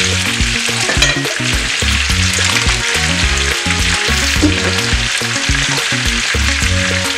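Snails frying in hot oil in a pan: a steady, dense sizzle, with a wooden spoon stirring them at first.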